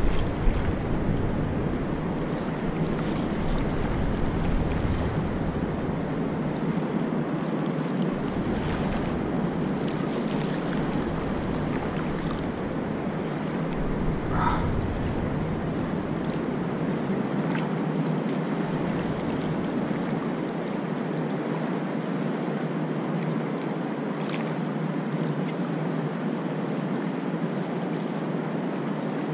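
Steady wash of small waves lapping on a sandy shore, with wind rumbling on the microphone that dies away about two-thirds of the way through. A few faint clicks.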